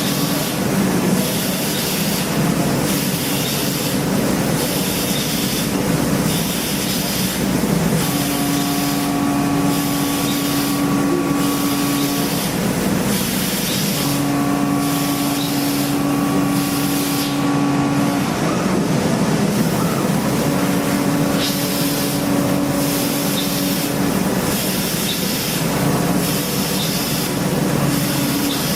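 CNC machining centre cutting an engine block: a steady hiss of coolant spray and machine running, with a steady cutting tone that comes in for about four seconds at a time, several times over.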